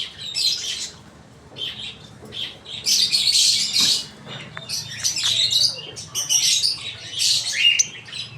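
Lovebirds calling with shrill, harsh chirps and squawks in repeated bursts.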